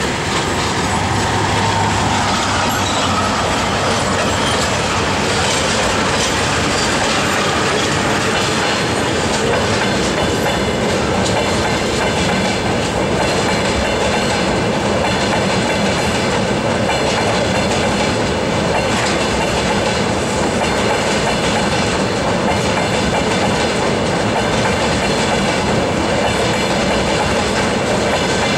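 Freight train of tank wagons rolling past behind VL60K electric locomotives: a loud, steady rumble of steel wheels on rail with a regular clacking over the rail joints.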